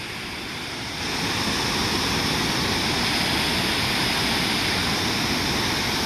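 Steady rushing of a large waterfall heard close by, an even wash of falling-water noise that grows louder about a second in.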